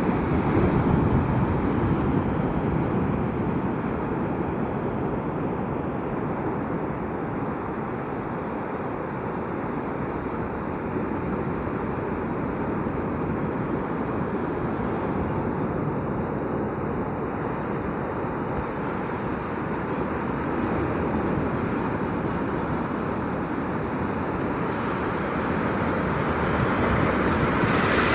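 Sea waves breaking and washing on a beach, a steady rush that swells as waves come in, with a louder surge just after the start and another building near the end.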